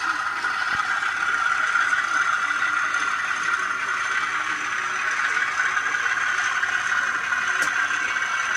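N gauge model train running under DCC control, a steady mechanical whir and rattle from the motor and the wheels on the track, with one brief click near the end.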